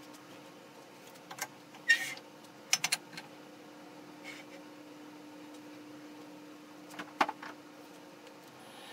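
Metal clanks and clicks of a wood lathe's tool rest and banjo being set in place and locked: a few sharp knocks in the first three seconds and two more near the end, over a steady low hum.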